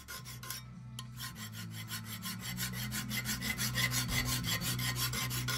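Hand file scraping across a steel blade in quick, even, repeated strokes, growing louder over the first few seconds.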